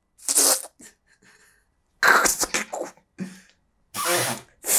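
A person making short, breathy, hissing mouth noises, several bursts in a row, as a vocal imitation of trousers ripping.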